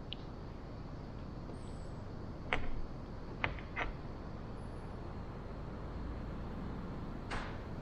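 A few light clicks and taps as a metal digital angle finder with a steel rule is set against a wooden frame, with a short rustle near the end, over a steady low workshop hum.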